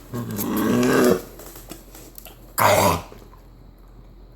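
Puppy's harsh, honking cough of the kind typical of kennel cough: a drawn-out hacking fit about a second long at the start, then a single short, loud hack near three seconds in.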